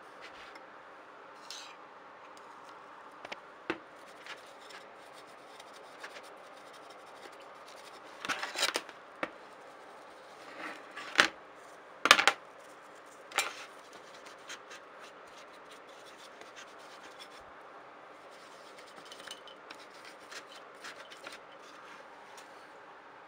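Cleaning a laptop motherboard with alcohol: intermittent scratching and rubbing against the board, with three sharp taps near the middle.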